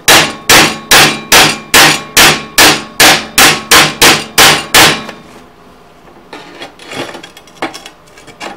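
Chipping hammer striking a fresh flux-core weld bead on a steel plate to knock off the slag: about a dozen sharp, evenly paced metal strikes, roughly two and a half a second, stopping about five seconds in. A few faint knocks follow.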